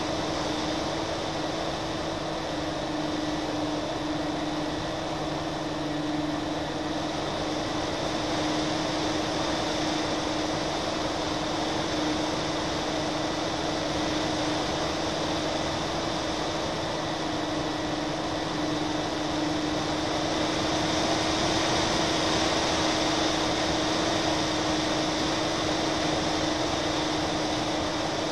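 Twin-engine FPV model airplane's motors and propellers droning steadily, heard from the onboard camera together with the rush of air. The drone holds one even pitch and grows a little louder about two-thirds of the way through.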